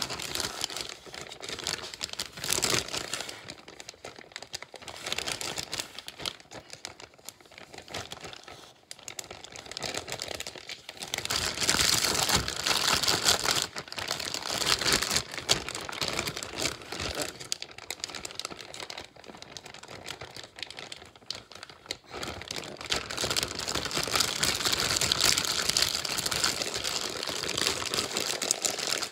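Clear plastic zipper bag crinkling and rustling continuously as hands grip and work it, louder in two long stretches, from about eleven seconds in and again from about twenty-two seconds in.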